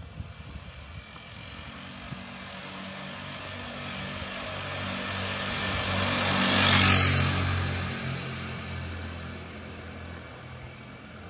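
A motor vehicle drives past: engine hum and road noise build up, are loudest about seven seconds in, then fade away.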